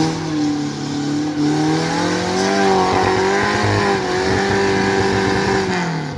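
Suzuki off-road 4x4's engine revving hard under load as it climbs out of a water crossing up a muddy bank, held at high revs with a slight rise midway and easing off near the end.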